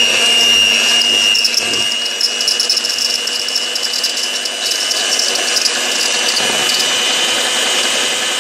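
DeLonghi electric hand mixer running steadily, its beaters whisking cake batter in a bowl, with a steady high motor whine and some light rattling in the middle.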